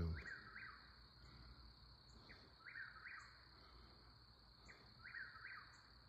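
Eastern whip-poor-will singing, heard faintly: its repeated 'whip-poor-will' call, three times about two and a half seconds apart.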